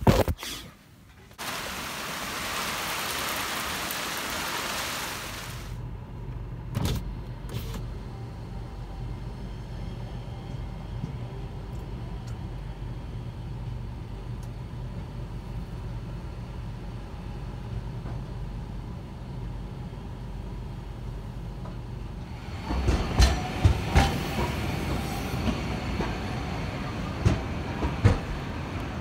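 Sapporo low-floor streetcar running on street track: a long steady low hum, then past the middle a louder rumble with rattles and knocks as it passes. A few seconds of hiss sound near the start.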